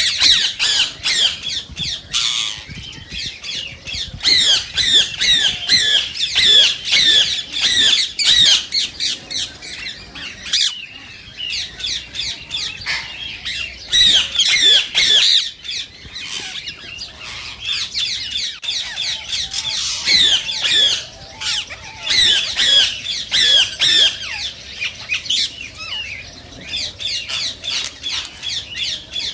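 Indian ringneck parakeets calling in rapid, shrill squawks, several short calls a second, with a short lull about ten seconds in.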